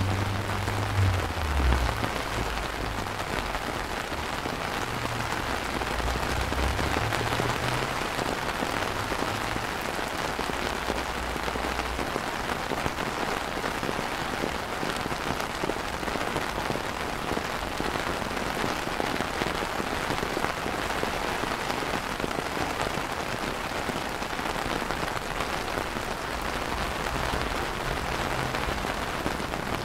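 Steady rain falling on wet paving and garden plants, an even hiss of drops. A low rumble sits under it for the first several seconds.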